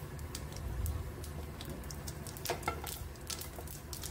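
Whole spices crackling in hot oil in a kadhai: scattered sharp pops and ticks over a low steady hum.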